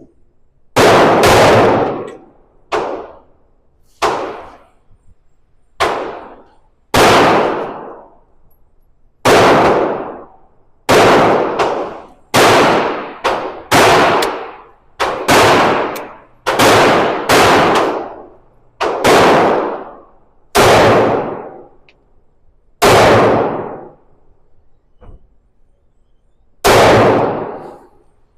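SIG P365 X-Macro 9mm pistol fired in a slow string of about seventeen shots, spaced irregularly one to two seconds apart. Each report rings on with a long echoing tail.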